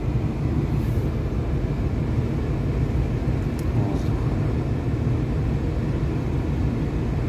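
Peugeot 807's 2.0 HDi common-rail diesel engine idling steadily, carrying the strong knock it was brought in for. The mechanic traces it to air puffing back into the intake manifold, possibly from a hydraulic lash adjuster not letting a valve close properly.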